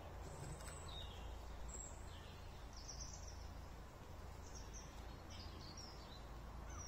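Faint outdoor ambience: a steady low rumble with a few short, faint bird chirps.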